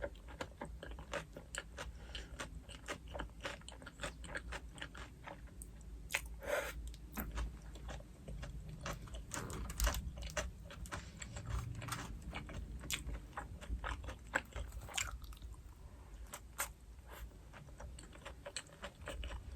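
Close-up chewing of crispy fried pork cutlet (donkatsu): many rapid, sharp crunches of the breaded crust, with steady chewing throughout.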